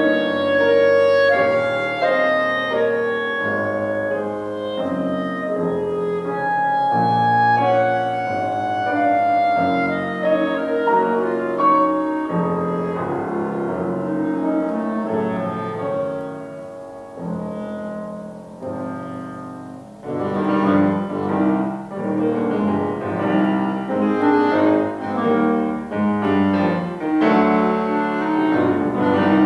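Clarinet and grand piano playing a classical duo. The music softens from about 17 to 20 seconds in, then returns louder with quicker, more rhythmic piano notes under the clarinet.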